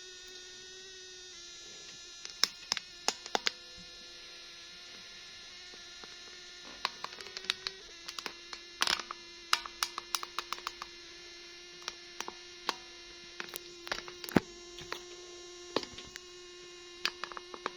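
Small sharp clicks and taps of plastic toy pieces and packaging being handled, in irregular clusters, over a steady buzzing hum.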